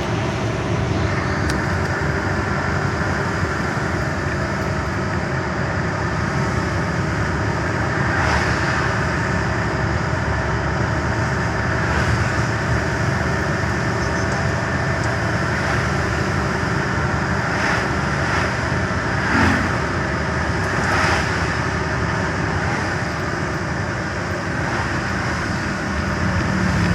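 Steady engine and road noise heard from inside a moving truck's cab, with a few brief swells along the way.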